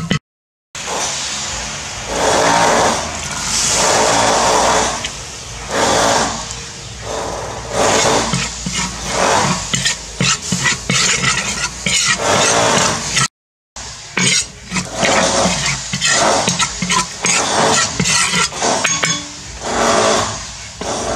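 Metal spatula scraping and stirring in a wok as food fries in hot, sizzling oil, in repeated strokes a second or so apart.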